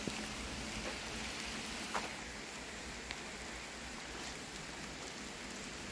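Steady outdoor hiss with a few faint, short clicks scattered through it.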